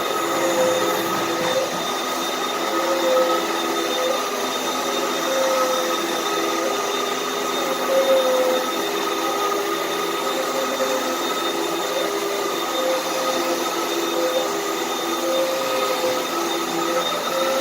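Vacuum cleaner running steadily and sucking up loose dirt, its motor whine holding with a slight waver in pitch over the rush of air.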